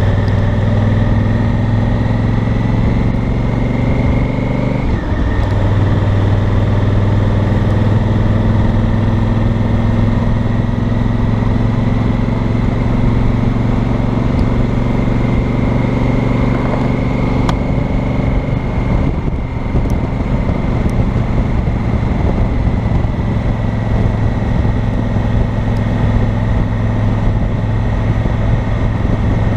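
A 2018 Honda Africa Twin Adventure Sports' parallel-twin engine and exhaust running steadily at low road speed, heard from a mic on the bike. About five seconds in the engine note drops sharply and picks up again, as at a gear change, and it dips briefly again around nineteen seconds.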